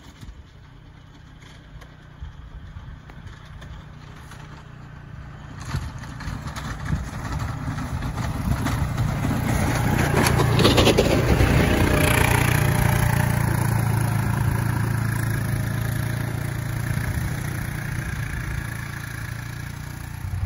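Kubota Sidekick utility vehicle's engine running as it drives up with a snow plow, growing louder until it passes close about halfway through, then easing off slowly.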